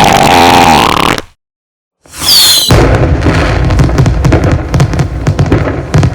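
A fart sound effect ends about a second in. After a short silence comes a brief falling whistle, then a steady barrage of fireworks bangs and crackles.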